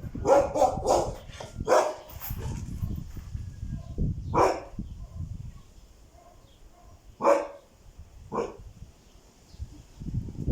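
Dogs barking: a quick run of several sharp barks in the first couple of seconds, then single barks spaced a few seconds apart.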